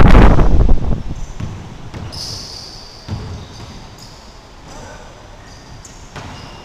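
A loud rush of noise on the microphone in the first second. Then, in a reverberant gym, basketball shoes squeak on the hardwood floor and a basketball bounces a few times.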